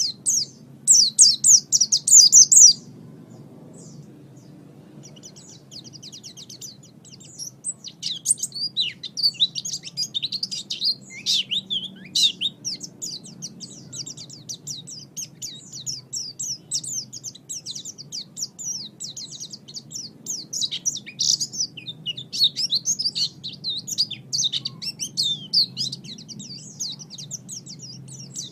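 Small songbird chirping and twittering in rapid high-pitched trills, used as masteran (song-training audio) for cage birds. A loud dense burst comes in the first few seconds, then a brief lull, then near-continuous chattering to the end.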